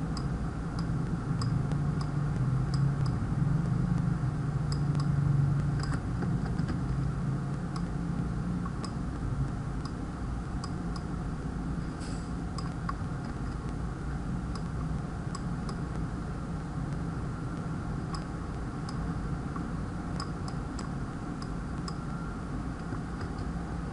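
Scattered, irregular computer mouse clicks over a steady low hum that is stronger in the first several seconds and then eases off.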